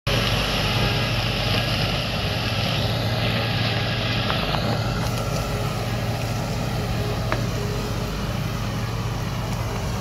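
Motor vehicle engine running steadily on a rough dirt road: a low, even drone that fades slightly as it goes.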